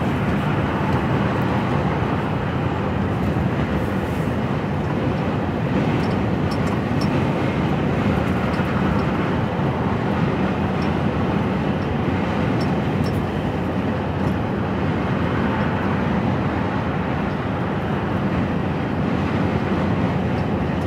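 Steady running noise inside an HGV lorry cab at motorway cruising speed: the diesel engine's even drone with tyre and road rumble, holding a constant speed on cruise control.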